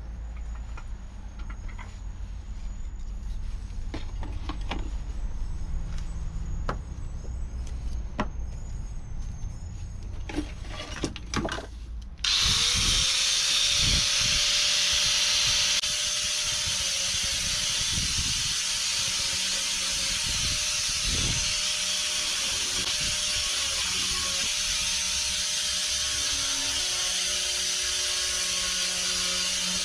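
Knocks and handling clatter, then about twelve seconds in a homemade saw driven by a 775 DC motor switches on: a whine rises quickly to a steady pitch and it runs on steadily with a loud hiss.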